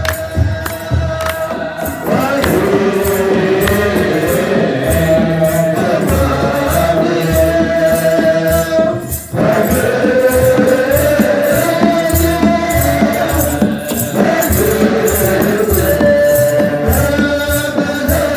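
Ethiopian Orthodox liturgical chant (zema): voices singing together over the steady beat of a kebero drum and the rhythmic jingle of shaken tsenatsel sistra. The singing breaks off briefly about nine seconds in, then resumes.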